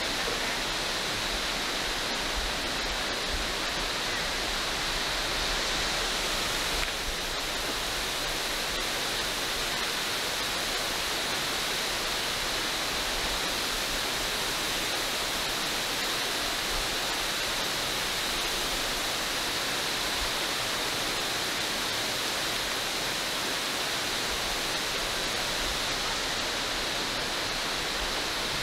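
Steady rush of water from Mossbrae Falls, many thin streams spilling down a mossy cliff into a rocky river.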